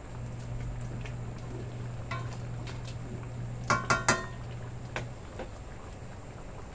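Wooden spatula stirring thick mung bean soup in a stainless steel wok, then knocking three times in quick succession against the wok about four seconds in, each knock ringing briefly. A low steady hum runs underneath and stops about five seconds in.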